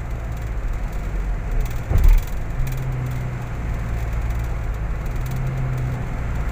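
Car driving along an elevated expressway: steady low engine and road rumble, with one brief thump about two seconds in.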